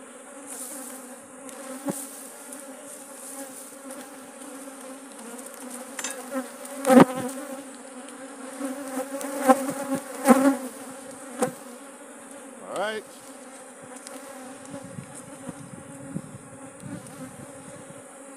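A disturbed, aggressive colony of honey bees buzzing in a steady, dense hum around an opened hive. A few sharp knocks from frames being worked in the box, the loudest around the middle, and one bee whizzing past close by with a rising buzz.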